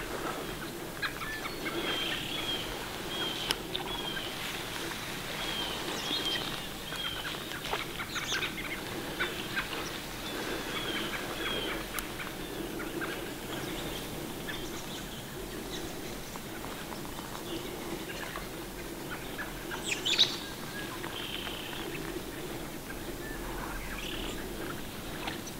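Birds chirping in a marsh, with a run of short, repeated, down-slurred chips in the first several seconds, over steady rustling and light crackling in dry grass. One louder, brief rustle comes about twenty seconds in.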